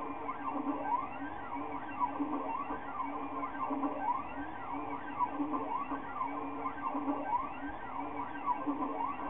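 Stepper motors of a Maker Select v2.1 (Wanhao i3) 3D printer whining as it prints, the pitch sweeping up and down in arcs once or twice a second as the print head speeds up and slows down on each move, over a steady hum.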